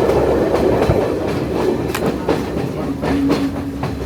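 Passenger train running along the track: a steady rumble with sharp clicks of the wheels over rail joints. About three seconds in, a steady tone comes in.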